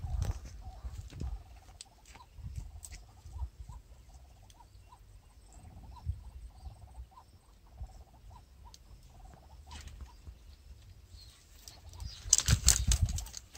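Fishing rod and spinning reel being handled at a pond's edge: faint regular ticks about two a second, then near the end a loud burst of rustling and low wind-buffeting thumps as the rod is swept back to set the hook.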